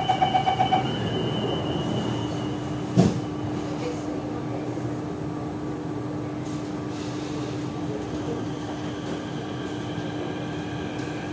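Door-closing warning on a CT251 metro train car: about six quick beeps, then the doors shut with a single knock about three seconds in. After that the car hums steadily with a constant low tone.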